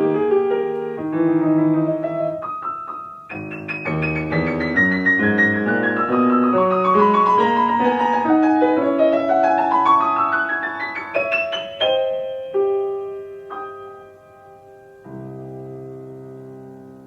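Solo piano playing: a run of notes falling down the keyboard, then a run climbing high, then a few sparse notes and a low chord held and fading at the close of the piece.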